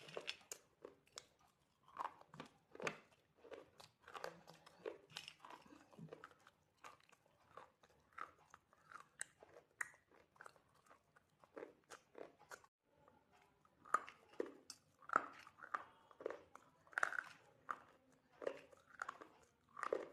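A person biting and chewing something hard and crunchy, a fast, irregular run of crisp crunches, with a brief pause about two-thirds of the way through.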